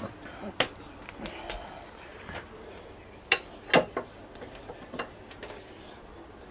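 Irregular metallic clicks and knocks of hand tools working on a motorcycle's rear axle nut as it is undone, the two loudest just past halfway.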